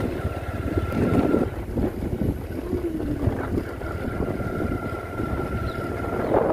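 Motorcycle being ridden, its engine running under heavy wind buffeting on the microphone, with a thin steady whine that comes and goes twice.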